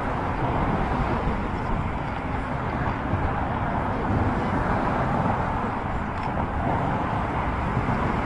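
Steady road-traffic noise from cars on the bridge's roadway, an unbroken wash of sound with no single vehicle standing out.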